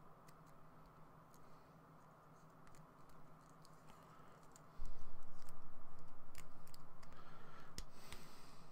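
Light clicks and taps of plastic model-kit parts being handled and pressed onto a Gunpla figure. About five seconds in, a low pulsing hum starts suddenly and slowly fades.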